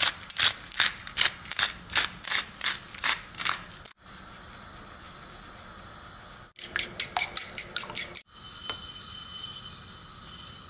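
Hand pepper mill being twisted to grind pepper, a quick run of ratcheting, crunching strokes, about three a second, then a second shorter bout of grinding. Near the end, sesame seeds are poured from a glass jar onto a ceramic plate, a light pattering hiss.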